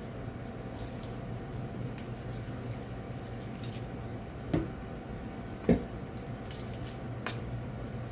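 Ponzu sauce dribbling from a bottle onto a noodle salad in a stainless steel bowl. Two sharp knocks about a second apart a little past the middle are the loudest sounds, followed by a few lighter clicks.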